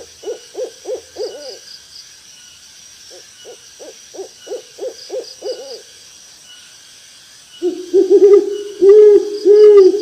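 Owl hooting: two runs of quick hoots, about four a second, then from near eight seconds in, louder, lower arching hoots. A steady high insect drone runs underneath.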